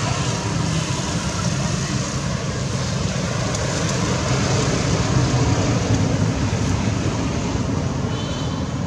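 Steady outdoor background noise: a low rumble with hiss and no distinct monkey calls. A brief high chirp comes about eight seconds in.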